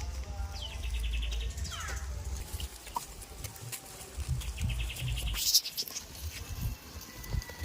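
Birds chirping in short rapid trills, with one falling call, over a low rumble.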